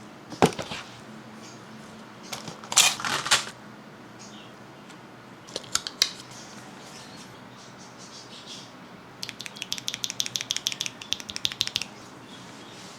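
Packaging being handled, with a knock, a short stretch of rustling and a couple of clicks, then a burst of rapid typing on a keyboard lasting about two and a half seconds, from about nine seconds in.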